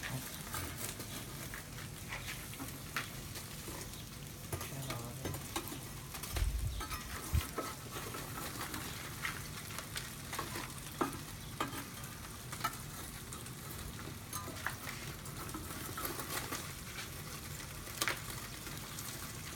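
Foil-wrapped fish grilling on a bed of charcoal embers: a steady sizzle and crackle with many sharp clicks, and a couple of dull thumps about six to seven seconds in.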